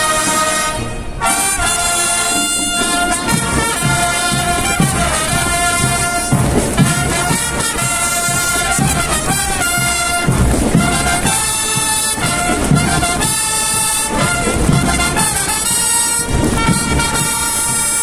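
Marching band of brass and drums playing on the march: brass sounding sustained chords that change every second or so over a steady beat of drums.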